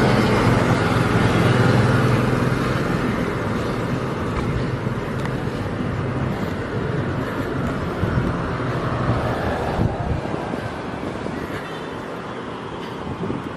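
Street traffic noise with a vehicle engine's steady low hum, loudest at the start and gradually fading.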